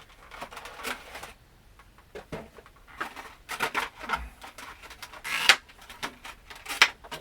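Rustling and scraping of a cardboard Funko Pop box being handled and slid into a stiff plastic pop protector, in irregular bursts, the loudest two near the end.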